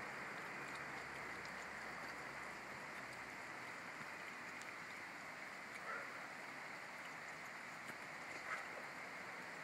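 Steady faint hiss of background noise, with a couple of soft clicks about six and eight and a half seconds in.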